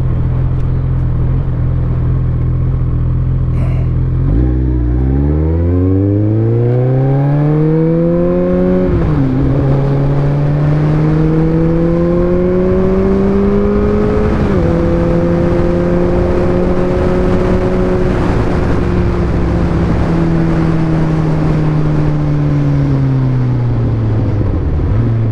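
2019 Kawasaki ZX-14R's inline-four engine running at low revs, then pulling hard. The note climbs steadily, dips at an upshift about nine seconds in, climbs again to a second upshift around fourteen seconds, then holds and slowly falls away as the throttle eases, over steady wind rush.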